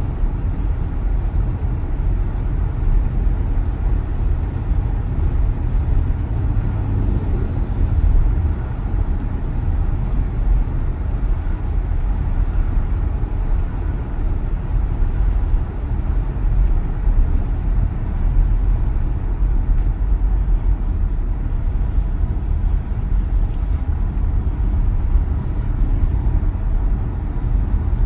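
Steady road and wind noise heard inside the cabin of a 2022 Tesla Model Y on the move: a low rumble of tyres with a hiss above it. No steady motor whine stands out.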